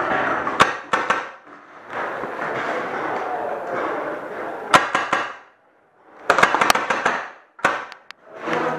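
Magfed paintball marker firing: sharp single cracks, then a quick run of several shots, over a steady rustling noise that drops out briefly twice.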